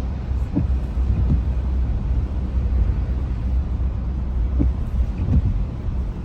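Steady low rumble of a car's engine and road noise heard from inside the cabin while driving, with a few faint soft knocks.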